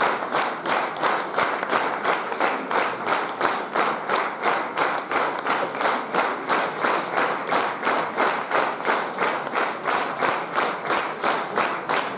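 Audience applauding in unison: rhythmic clapping in time at a steady beat of about three claps a second.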